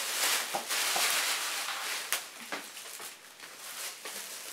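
Thin plastic bag crinkling and rustling as a plush toy is worked out of it, with scattered crisp crackles, louder in the first couple of seconds and then fainter.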